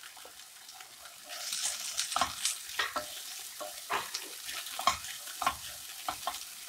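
Chicken samosa filling being stirred in a frying pan: a utensil scrapes and taps against the pan over a light sizzle, starting about a second in.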